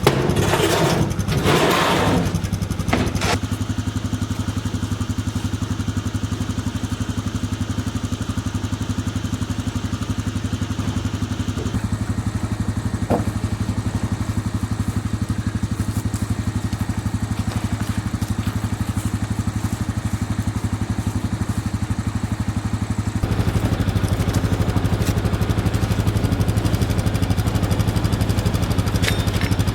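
Engine running steadily at idle, getting louder and fuller about three quarters of the way through, with a few light knocks.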